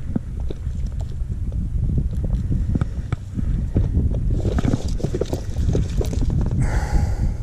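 Wind rumbling on the microphone, with short knocks and rustles from hands working a trout out of a mesh landing net. Louder bursts of net rustling come after about four seconds and again near the end as the net is lifted.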